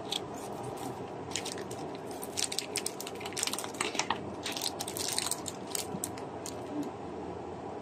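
Soft plastic packaging crinkling and crackling in irregular bursts as hands open and pull at it, over a steady low background hum.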